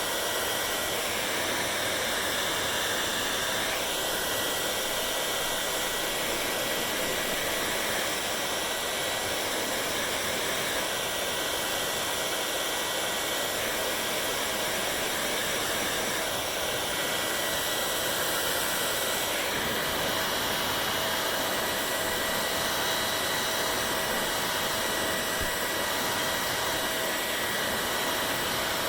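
Hair dryer running steadily: a constant blowing hiss with a faint steady whine, its tone shifting slightly every few seconds.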